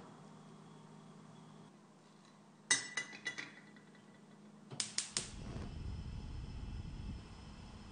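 Metal frying pan clattering on a stovetop: a sharp clank with a few rattling, ringing knocks, then a second quick run of four knocks a couple of seconds later, followed by a low rumble lasting about two seconds.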